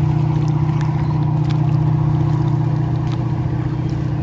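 A steady low engine hum with a constant pitch.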